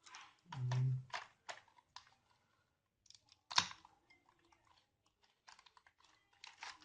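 Hands handling the SSD's retail packaging: scattered small clicks, taps and rustles, the sharpest click about three and a half seconds in, with a short vocal sound near the start.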